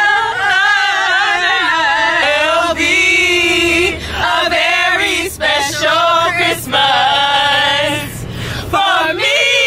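A group of young women singing together in unison, holding long wavering notes with short breaks between phrases, over a low steady hum.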